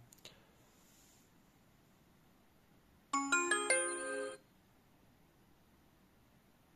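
Sonoff NSPanel Pro smart home panel playing a short startup chime as it boots: a few quick notes stepping upward, lasting just over a second, about three seconds in.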